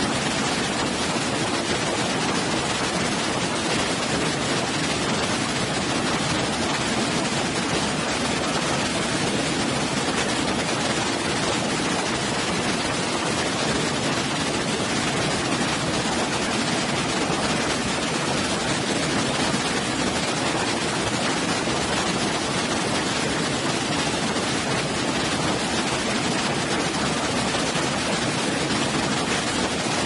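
Waterfall: a steady, unchanging rush of falling water.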